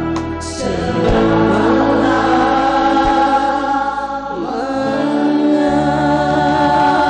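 Large vocal ensemble singing a song live into stage microphones, with musical accompaniment, the voices holding long notes.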